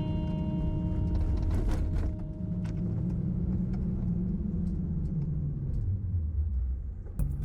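Low, steady rumble of a car on the move, with a few light knocks. Guitar music comes in near the end.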